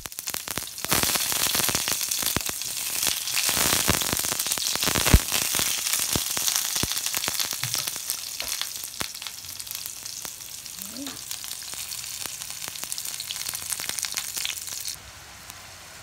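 Sliced onion and garlic sizzling and crackling in hot oil in a frying pan, with one sharp pop about five seconds in. The sizzle is strongest in the first half, eases off gradually, then stops suddenly about a second before the end.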